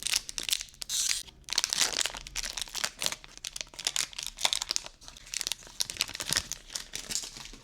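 Foil wrapper of a Pokémon trading card booster pack crinkling and tearing as it is opened by hand. The dense crackle thins out toward the end.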